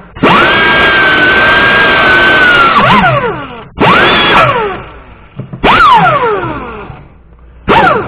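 Die grinder with a wire wheel scrubbing rust and old gasket material off the exhaust port flange of the cylinder head. It runs in four bursts: a steady high whine over a scraping hiss, held for about three seconds at first, then in shorter bursts. Each burst ends with a falling whine as the tool spins down once the trigger is let go.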